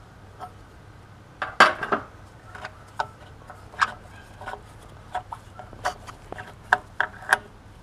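Metal spanner clinking and clicking against the exhaust oxygen sensor as it is worked loose. The taps are irregular, about one or two a second, with the loudest clink about one and a half seconds in.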